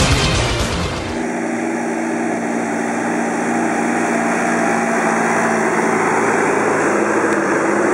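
Music cuts out about a second in, giving way to the Reform Muli T7 transporter's engine running steadily as it drives along a windrow picking up hay with its loader-wagon pickup.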